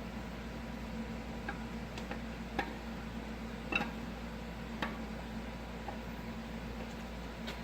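Scattered light clicks and clinks, about seven of them at uneven intervals, over a steady low hum.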